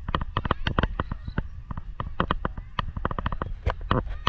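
Footsteps on dry grass: a quick, irregular run of crackles and thuds, over a steady low rumble.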